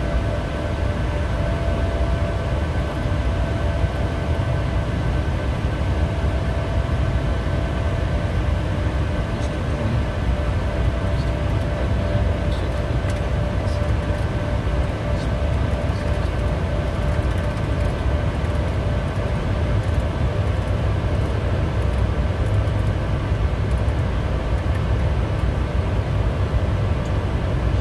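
Steady cockpit noise of a Bombardier Challenger 350 twin-turbofan business jet descending on approach: a continuous low rumble of airflow and engines, with faint steady tones above it.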